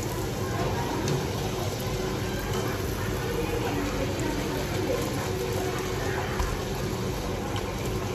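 Puris deep-frying in hot oil in an aluminium kadai: a steady sizzle, with a few faint clicks of the wire strainer against the pan.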